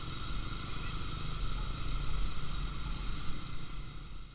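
Motorcycle engines running at a steady low rumble, fading out near the end.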